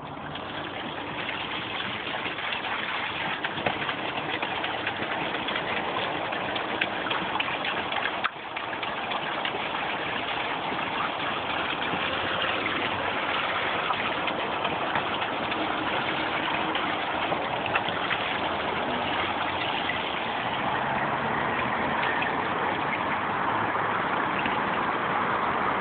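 Water running steadily through an open PVC-pipe channel, a continuous trickling rush that grows a little louder toward the end.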